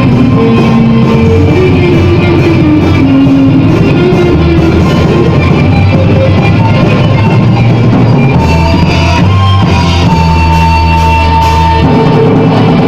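Gothic metal band playing: guitar and drum kit, with a winding melody line in the first half and long held low notes and a sustained higher note from about eight seconds in.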